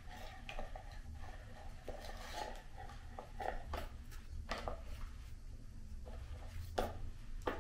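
Scattered light plastic clicks and taps as the parts of a reusable respirator mask are handled and fitted together, over a low steady hum.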